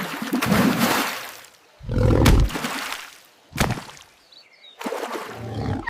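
Cartoon elephant calling out in distress while stuck, with loud, rough, roar-like cries in four bursts, the third one short.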